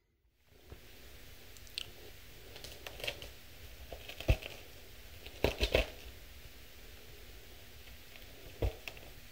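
A metal fork poking and scraping through a crisp salad, with scattered sharp clicks against the serving dish: the loudest about four seconds in, then three close together a second later.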